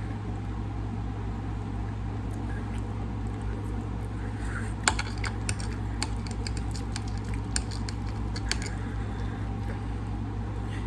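Eating sounds: a run of small sharp clicks and taps from utensils and chewing, about halfway through, over a steady low hum.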